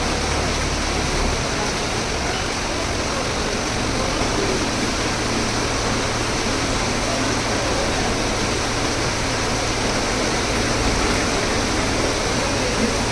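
Steady rushing of rainwater, with a vehicle engine running low and steady underneath.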